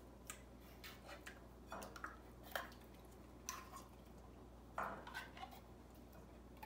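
Faint, scattered clinks and scrapes of a metal utensil against an opened tin can and a glass bowl as condensed cream of mushroom soup is scraped out of the can into the bowl.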